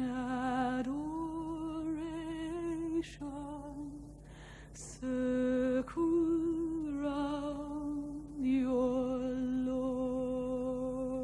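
Slow solo singing: one voice holding long, wavering notes of a few seconds each, with short pauses and a breath between phrases.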